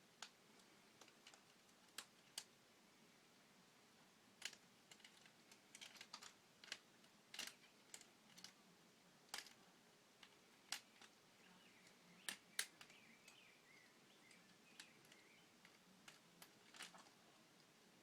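Plastic K'nex pieces clicking and knocking against each other as a K'nex suit arm is taken apart and removed. The clicks are sharp, irregular and scattered, with quiet between them.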